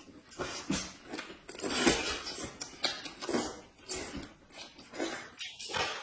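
Close-miked eating sounds: noodles slurped and food chewed in a run of irregular short wet smacks, loudest about two seconds in.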